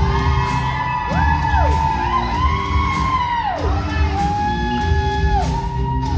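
Music for a show choir dance number: a steady heavy beat under high held notes that swoop up into place and slide back down several times.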